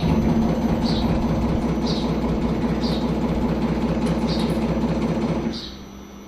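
Luminous Cruze 10 kVA inverter humming loudly with a coarse, buzzy drone, as its transformer runs under power, then cutting off abruptly about five and a half seconds in. A faint high chirp repeats about once a second.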